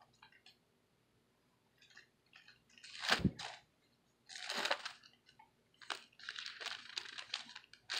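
Rustling and handling noises: scattered soft clicks, then a few short rustling bursts, the strongest about three seconds in.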